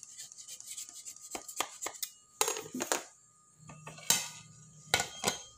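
A spatula scraping and clicking against the inside wall of an aluminium cake pan as it is worked around a baked cake to loosen it. A few sharp metallic clanks from the pan being handled follow in the last couple of seconds.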